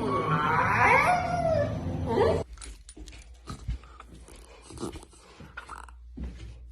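A puppy yawning out loud: a whiny, squeaky vocal yawn whose pitch bends up and down for about two and a half seconds. It is followed by a quieter stretch of faint clicks.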